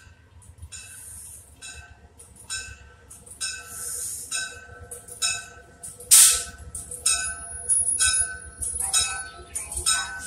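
Arriving commuter train's bell ringing steadily about once a second, over the low rumble of the train rolling in. About six seconds in comes a short, loud burst of noise, and a thin high squeal holds through the last few seconds.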